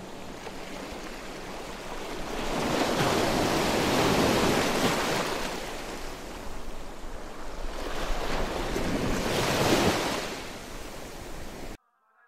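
Surf-like rushing noise of ocean waves, swelling and receding twice over faint steady music tones, then cutting off abruptly near the end.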